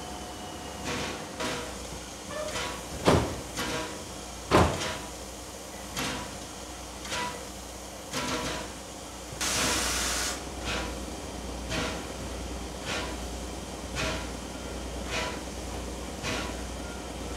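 Pt47 steam locomotive with regular beats about once a second, two heavier knocks a few seconds in, and a short burst of steam hiss about halfway through.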